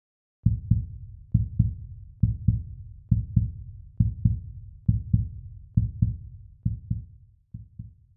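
Heartbeat sound effect: slow paired low thumps, lub-dub, about once a second. They start about half a second in and grow fainter near the end.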